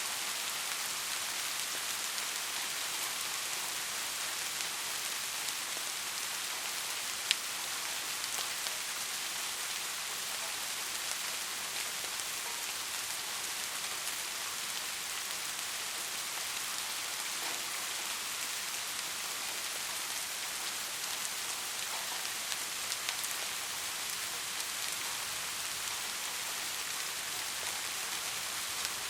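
Steady rain: an even hiss with scattered individual drops ticking, one sharp drop standing out about seven seconds in.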